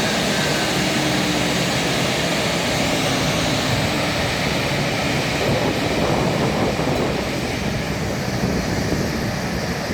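Airbus A220's Pratt & Whitney PW1500G geared turbofan engines running, a steady jet noise that eases slightly near the end.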